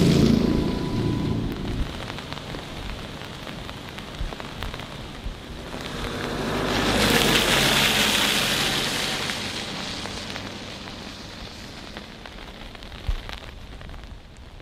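A pickup truck drives past on a wet, muddy road. The hiss of its tyres swells to a peak about seven to eight seconds in and then slowly fades. At the start, the sound of a passing tractor and manure spreader dies away, and there is a brief knock near the end.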